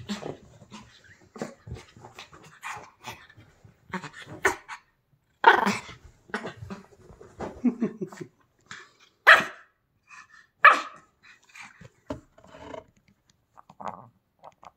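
A wet Pomeranian rubbing and rolling on a woolly blanket to dry herself, with irregular scuffling and rubbing noises mixed with short growls and barks. The sounds come in uneven bursts, the loudest a little past a third of the way in and twice more about two-thirds through.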